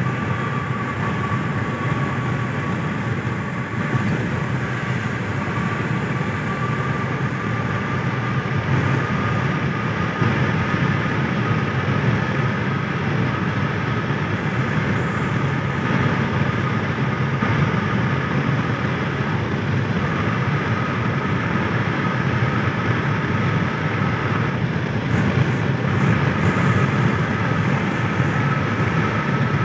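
Steady road and tyre noise inside a car cruising on a highway, a low rumble with a steady whine above it.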